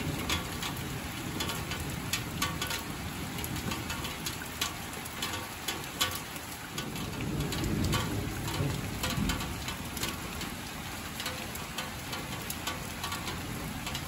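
Steady rain at night, with many individual drops ticking on a surface close by. A low rumble of distant thunder swells and fades in the middle.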